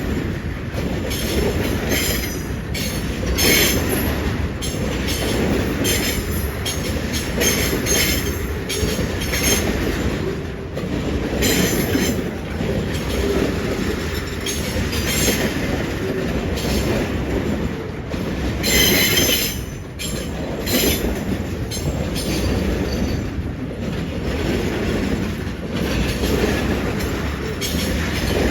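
Loaded tank train rolling past with a steady rumble of wheels on rail, broken by many short, high metallic squeals from the wheels, the loudest about two-thirds of the way through.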